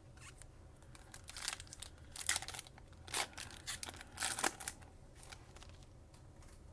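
Plastic wrapper of a trading-card pack crinkling and tearing, a run of short crackles between about one and four and a half seconds in.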